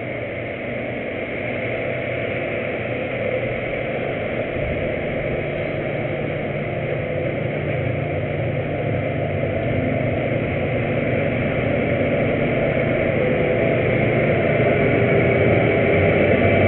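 Combine harvester running, a steady engine and machinery drone that grows gradually louder as the machine draws nearer.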